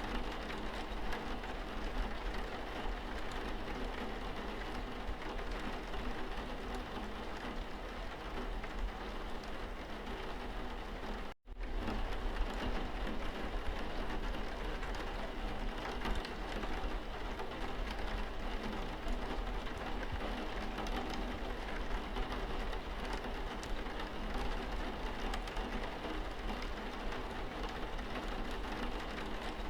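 Steady rain falling, a dense even hiss of drops with a low rumble underneath. It cuts out abruptly for a split second about a third of the way through, then resumes unchanged.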